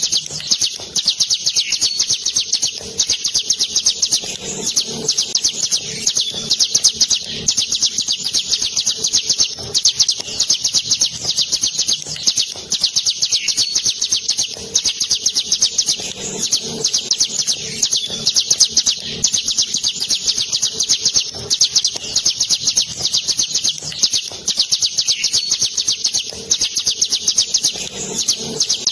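Caged hill prinia (ciblek gunung) singing a long, unbroken rolling song ('ngeroll'): a very fast, high trill of rapid notes that runs on with only brief catches.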